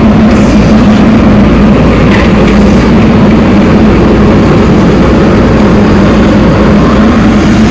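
Loud, steady motor noise with a constant low hum that holds unchanged throughout.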